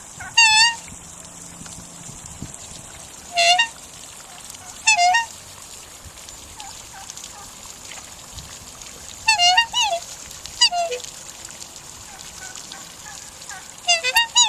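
Black swans giving short, high, wavering bugle calls, about eight in all, some singly and some in quick pairs, a few seconds apart.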